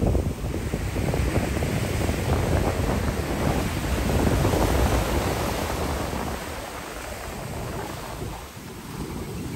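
Ocean surf washing in along the beach, with wind buffeting the microphone. The wash swells about halfway through and eases off near the end.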